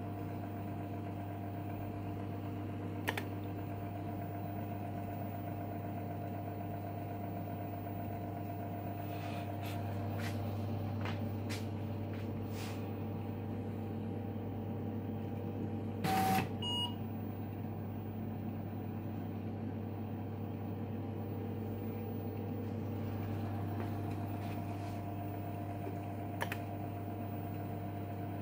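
Steady hum of an IBM Displaywriter and its IBM 5218 daisy-wheel printer switched on and idle, with a few scattered clicks from control buttons being pressed. A short electronic beep comes about 16 seconds in. No printing is heard.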